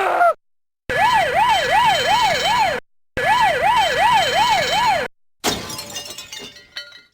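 Siren sound effect: a fast rising-and-falling wail, about three sweeps a second, played in two bursts of about two seconds each with a short break between. About five and a half seconds in it gives way to a crashing, breaking clatter with small clinks.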